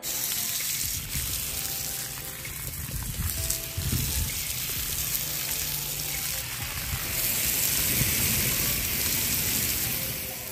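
Garden hose spray rinsing down fishing rods and reels: a steady hiss of water spattering on the reels and rods.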